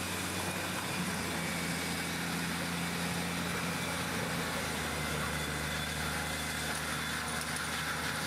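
Large engine running at a steady speed: an even, low drone with no grinding impacts.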